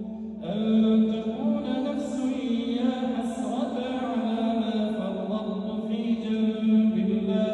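A man reciting the Quran in melodic tajweed style, drawing the words out in long held notes that rise and fall slowly.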